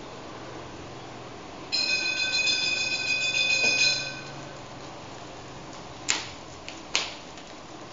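Bread seller's motorbike bell ringing 'ting ting ting' in quick repeated strokes for about two and a half seconds, starting about two seconds in. Two sharp clicks follow near the end.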